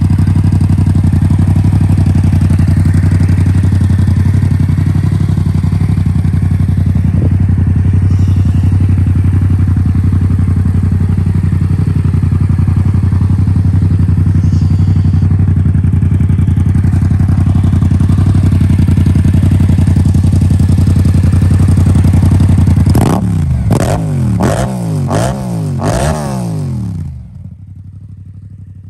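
Yamaha MT-07's 689 cc parallel-twin engine breathing through an Akrapovič exhaust, idling steadily for about twenty seconds. It is then revved in about five quick throttle blips, each rising and falling back, before the sound cuts off near the end.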